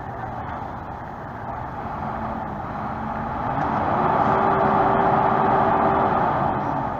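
Diesel engine of a heavily loaded truck pulling up a steep ramp under load: it revs up about three seconds in, holds at high revs as it gets louder, then eases off near the end.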